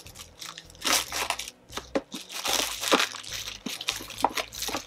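A cardboard beauty box being opened and its paper packaging crinkled and rustled by hand, with a few short sharp clicks among the rustling.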